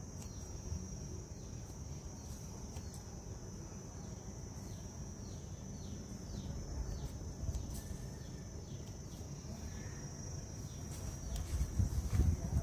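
Steady high-pitched insect drone with short falling chirps repeating every second or so over a low outdoor rumble. Near the end, louder rustling and bumps as a hand reaches into the pepper elder plants to pick stems.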